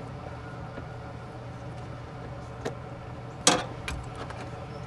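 Plastic door trim of a 1998 Ford Expedition clicking into place as it is pressed onto the door: a light click, then a sharp, louder snap about three and a half seconds in, followed by a few small ticks. A steady low hum runs underneath.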